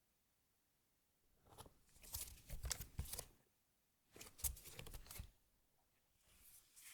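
Three bursts of hand-handling noise, with rustling and small sharp clicks, from keyboard parts being handled while fitting the keyboard PCB into the acrylic case.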